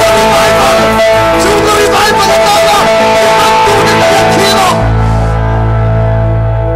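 Live church worship band playing loudly, with guitar prominent. About five seconds in, most of the band stops suddenly, leaving a sustained chord ringing on.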